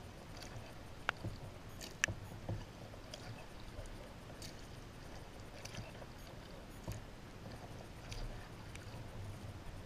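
Kayak paddling: the double-bladed paddle dipping and pulling through calm river water in steady alternating strokes, with drips and light splashes. A few sharp clicks come through, the two loudest about one and two seconds in.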